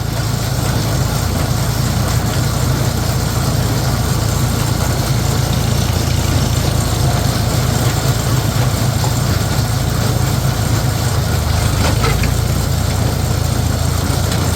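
Tractor engine running steadily at a constant speed, its sound mostly low-pitched.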